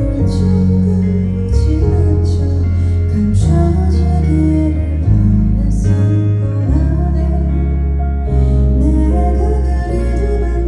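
Music: a song with guitar and a deep bass line, the chords changing every second or two.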